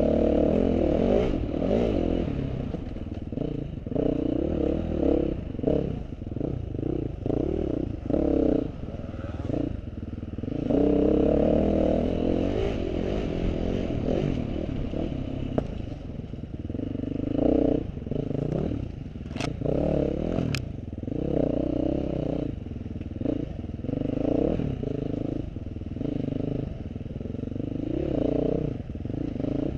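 Off-road motorcycle engine running under load, its revs rising and falling again and again, with clattering from the bike. Two sharp clicks come about two-thirds of the way through.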